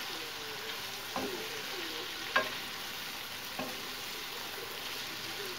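Minced beef, mushrooms and tomatoes sizzling in a frying pan while a wooden spoon stirs them, with about three sharp knocks of the spoon against the pan roughly a second apart.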